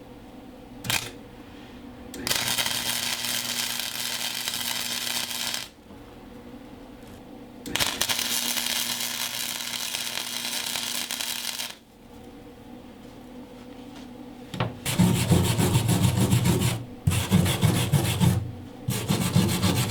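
Wire-feed welder arc crackling while welding 16-gauge sheet-steel patch plates into a school bus floor. There are two steady runs of about three and four seconds. From about fifteen seconds in, the welding is louder and choppier, with short breaks.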